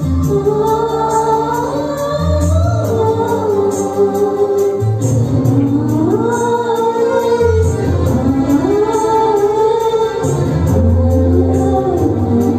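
Choir singing a Tamil devotional hymn over electronic keyboard accompaniment with held organ-like chords and a light steady beat.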